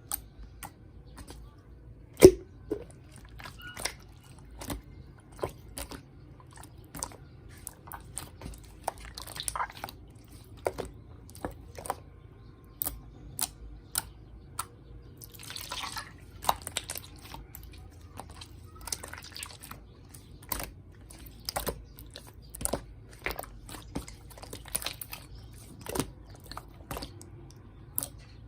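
Slime being squished and poked by hand, giving an irregular run of sharp wet clicks and pops, with a short squelching hiss about halfway through.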